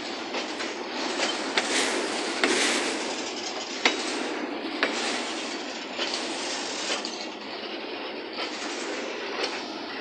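Freight train of covered hopper wagons rolling past, steel wheels on the rails making a steady rumble with sharp clicks and knocks scattered throughout.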